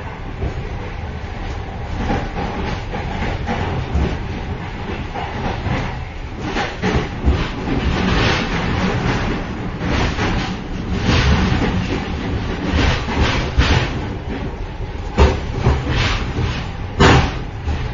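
Moving train heard from the vestibule between cars: a steady low rumble of wheels on rail with irregular metallic clattering and knocks, one louder bang near the end.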